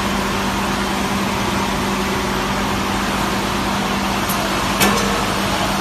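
Wire-mesh production machinery running with a steady loud noise and a constant low hum, with one sharp click near the end.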